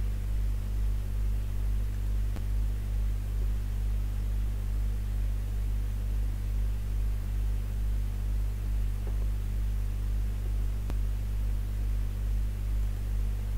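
Steady low electrical hum with a faint hiss behind it, wavering slightly in loudness, like mains hum picked up in a recording chain. Two faint clicks sound about two seconds in and near eleven seconds.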